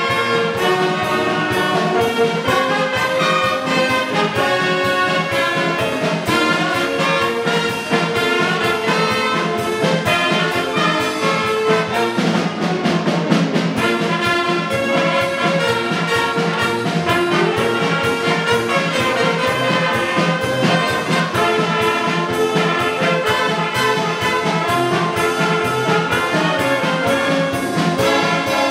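Youth brass band — trumpets, tubas, saxophones, clarinets and flute — playing a piece together, with a steady beat running through it.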